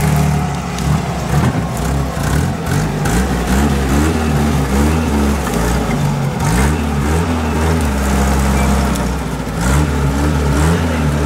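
UAZ-469 off-road vehicle's engine working under load in a deep rut, running steadily and revving up in short rising bursts several times.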